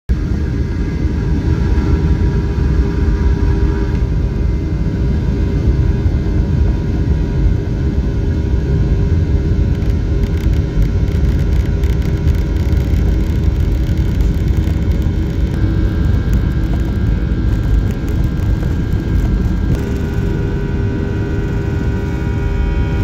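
Cabin noise of an airliner on its takeoff roll: jet engines at takeoff power give steady whining tones over a heavy rumble from the wheels on the runway. New engine tones come in about fifteen and twenty seconds in.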